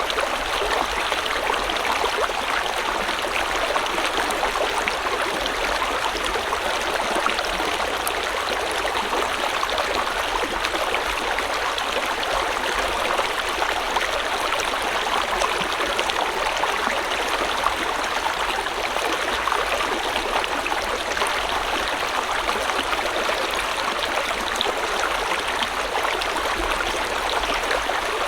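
Steady rush of a flowing river or stream over rocks, an even, unbroken babble of water.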